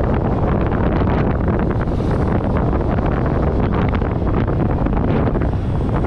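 Steady, loud wind buffeting the microphone of a camera on a moving motorcycle, with a low rumble of engine and road noise underneath.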